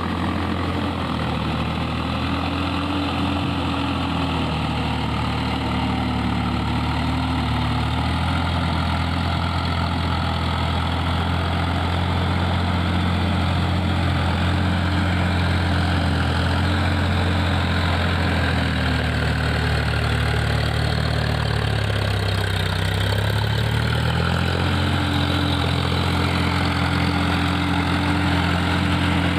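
Indo Farm 3048 tractor's diesel engine running steadily under load as it drags an implement through flooded paddy mud. About three-quarters of the way through, the engine note sags and then picks back up.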